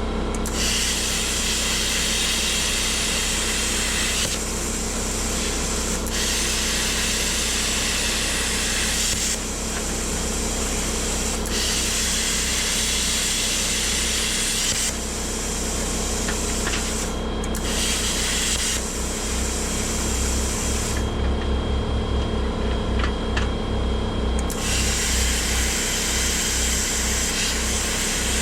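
Plasma cutter cutting through steel unistrut channel: a loud hiss of the arc and air that starts and stops several times, in stretches of about three seconds each, over a steady hum.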